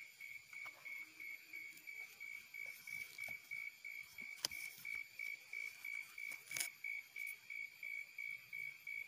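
An insect chirping steadily: a high, even-pitched note pulsing about three times a second. A few sharp clicks come through it, the loudest about two-thirds of the way in.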